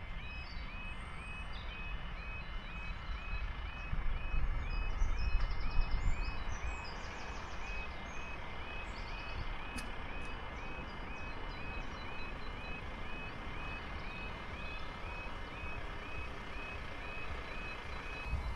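Level-crossing warning alarm sounding a two-tone warble that repeats steadily while the barriers lower. A low rumble swells for a couple of seconds around four seconds in.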